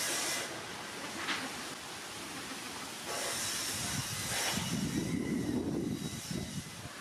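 Steady hiss of outdoor background noise, with a louder, lower rustling stretch in the second half.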